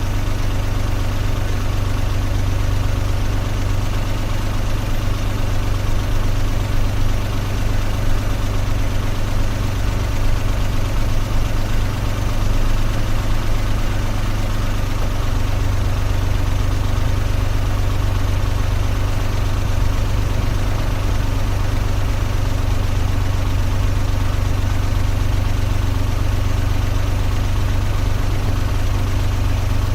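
Car engine idling steadily, a constant low hum with no change in revs.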